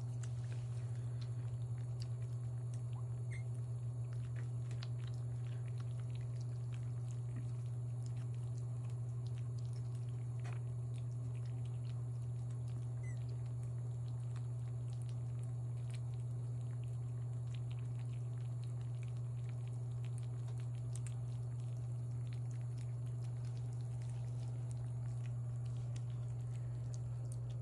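Kittens eating wet food from a plate, with faint scattered chewing and lapping clicks, over a loud, steady low hum.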